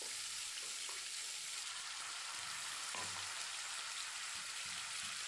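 Spice masala paste sizzling steadily in mustard oil in a non-stick kadai, with a few soft scrapes of a wooden spatula stirring it. The masala is being cooked down until the oil separates.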